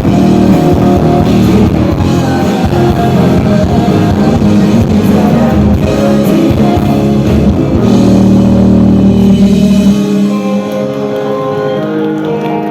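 Live rock band, electric guitar and drum kit, playing the closing bars of a song. About ten seconds in, the drums and bass drop out and held chords ring on.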